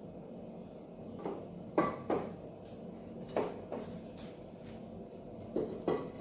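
Metal parts knocking and clinking as they are handled and set down, about seven sharp knocks, mostly in pairs.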